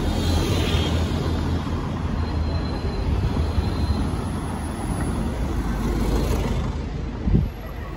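London red double-decker buses running close by in the street: a steady low engine rumble with traffic noise. A short low thump comes near the end, after which the rumble falls away.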